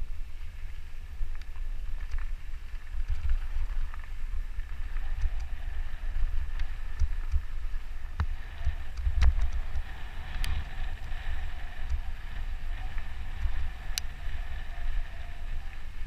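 Wind buffeting the microphone of a camera on a moving mountain bike, a steady low rumble with the tyres rolling over a dirt trail, and a few sharp clicks from the bike jolting over the ground.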